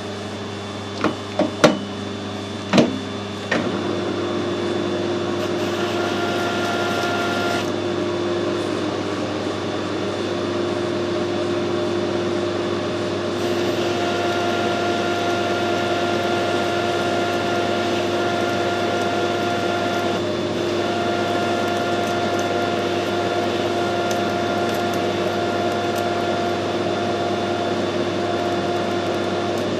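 A few knocks, then a metal lathe running with a steady hum while it turns a steel bar. A harsher cutting sound comes in briefly about six seconds in and again from about halfway.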